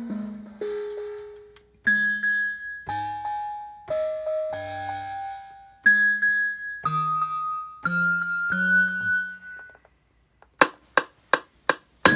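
A slow melody of single bell-like electric keyboard notes from an Akai MPC Live's stock sounds, about one a second, most with a low bass note under them, each ringing and fading. Near the end comes a quick run of about six short sharp percussion hits.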